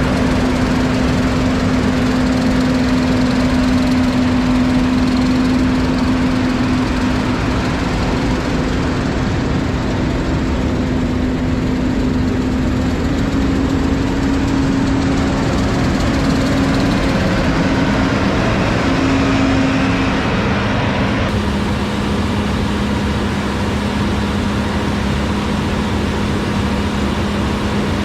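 A farm machine's engine running steadily under load, with a constant hum. Its pitch drops a little about three-quarters of the way through.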